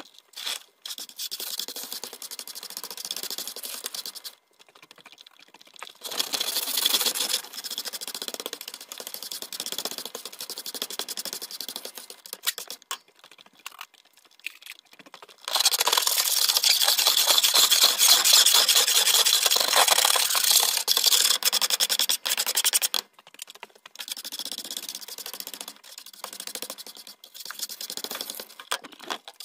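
Stiff-bristled hand broom scratching over the brooder's hard floor, sweeping spilled chick feed and droppings into a plastic dustpan. It goes in bouts of rapid scratchy strokes with short pauses, with the longest and loudest bout about halfway through.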